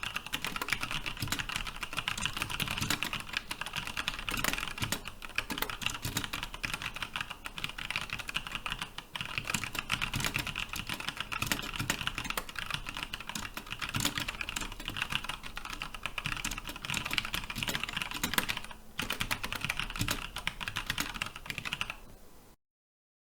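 Fast touch-typing on a 60% mechanical keyboard with Cherry MX Brown switches and PBT keycaps: a dense, quick stream of key clacks. There are brief pauses about nine and nineteen seconds in, and the sound cuts off suddenly shortly before the end.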